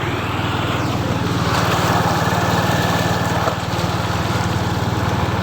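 A vehicle's engine running steadily at an even speed, with a faint high whine for a couple of seconds in the middle.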